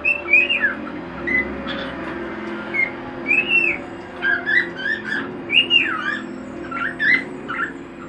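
Cockatiel chirping: a run of short whistled calls, several swooping up and then down in pitch, repeated every second or so.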